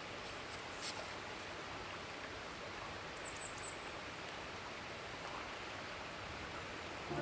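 Steady rush of river water, with three quick high bird chirps a little past three seconds in and a single light tick about a second in.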